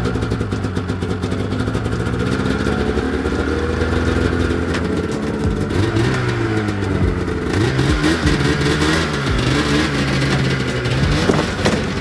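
Polaris 600 snowmobile's two-stroke engine running just after starting. It holds a steady idle, then revs up and down repeatedly from about six seconds in as the sled pulls away.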